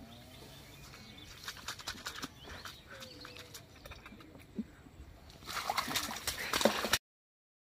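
Shallow muddy water splashing and sloshing around a bamboo polo fish trap as it is pressed down into the water, with scattered light clicks. The splashing gets louder about five and a half seconds in, then the sound cuts off suddenly.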